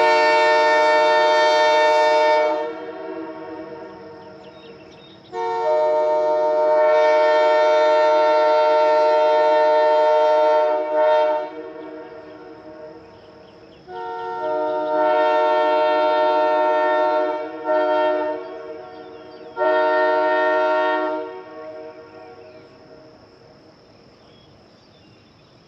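Early-1960s Canadian sandcast Nathan Airchime K3H three-chime train horn sounding a chord in a series of blasts: one ending about two seconds in, a long one of about six seconds, a shorter one, a quick toot and a last short blast, each fading away over a few seconds. Its number 1 bell still has a slight warble.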